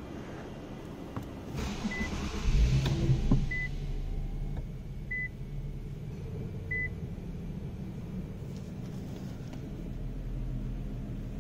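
Infiniti Q50's 3.7-litre V6 starting from inside the cabin: a short crank and a flare of revs about two and a half seconds in, then settling to a steady idle. Four short high beeps from the car's chime come about a second and a half apart.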